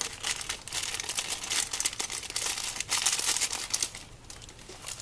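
Toy packaging being opened by hand: dense crinkling and tearing of wrapping for about four seconds, dying down near the end.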